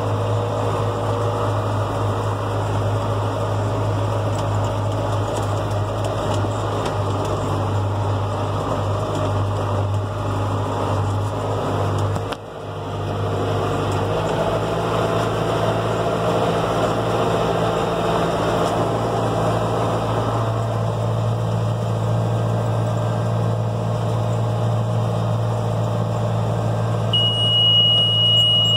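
John Deere 6400 tractor's diesel engine running steadily while it pulls a New Holland 648 round baler through the hay, its note dipping briefly about twelve seconds in. Near the end a steady high beep sounds from the baler monitor, the signal that the bale is full and ready to wrap.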